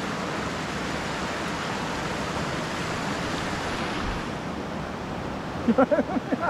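Rocky mountain stream rushing over stones, a steady even rush of whitewater. Near the end a person's voice briefly cuts in over it.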